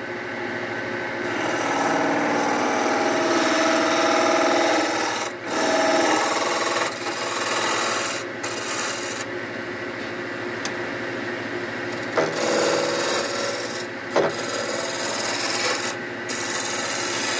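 Wood lathe spinning a fir tool handle, with a turning tool cutting the wood in passes that stop and start over the steady hum of the lathe motor. A few short knocks come from the tool meeting the work.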